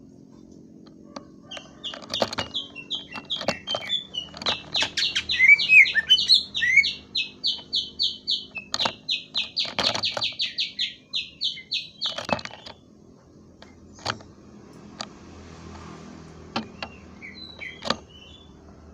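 Green leafbird (cucak ijo) singing a fast run of clear, rapidly repeated high notes, with sharp clicks among them. The run starts about a second and a half in and stops about twelve seconds in, leaving only scattered short chips and clicks.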